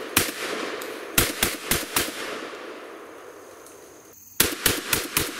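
Beretta 1301 Tactical 12-gauge semi-automatic shotgun fired in rapid succession. A single shot is followed by a quick string of four about a quarter second apart, then after a pause another quick string of five. Each shot trails off in echo.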